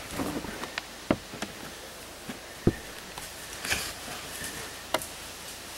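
About half a dozen short, sharp snaps and clicks scattered over a steady faint hiss. The two loudest come about a second in and about halfway through.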